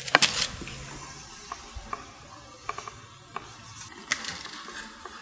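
Felt-tip markers being handled: a cluster of sharp clicks at the start, then a scattered handful of small clicks and taps as a marker's cap is pulled off and put back on.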